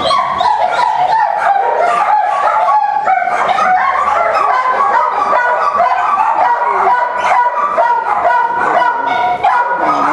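A litter of newborn puppies whimpering and squealing, several high cries overlapping without a break.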